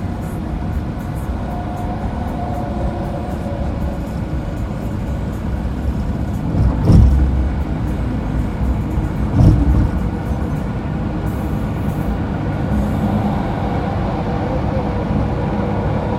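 Car driving at highway speed: a steady rumble of tyres and engine on the road, with two short, louder thumps about seven and nine and a half seconds in.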